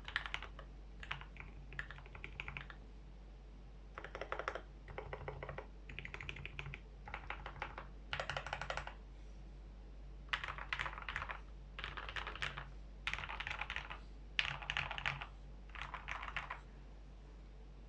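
Typing on a KBD75v2 mechanical keyboard with lubed Gateron Black Ink linear switches in an aluminium plate: a dozen or so short bursts of keystrokes with brief pauses between. The typing stops about a second before the end.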